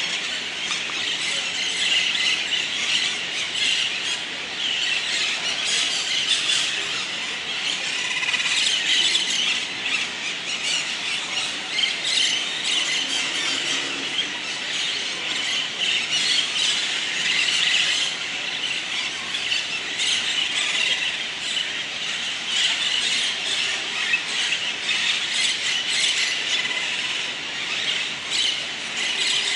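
A flock of green parakeets screeching together, a continuous chorus of shrill overlapping calls, as they gather in their roost tree for the night.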